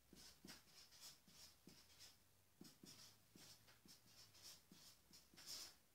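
Felt-tip marker writing on flip-chart paper: faint, in many short separate strokes as an equation is written out.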